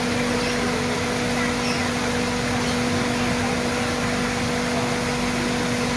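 Steady rushing of small waterfalls pouring over rocks into a pond, with a constant low hum underneath.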